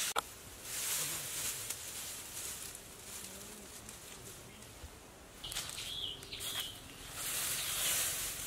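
Dry grass thatch rustling and crackling as it is handled, with a sharp knock just after the start and a few short high chirps about two-thirds of the way through.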